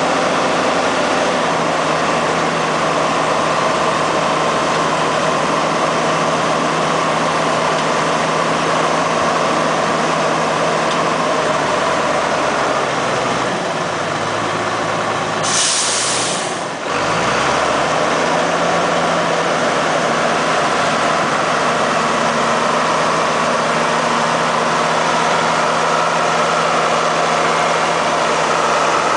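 Heavy diesel engine running steadily. About halfway through it drops in pitch, a short burst of air hisses out like an air brake, and the engine climbs back up to speed.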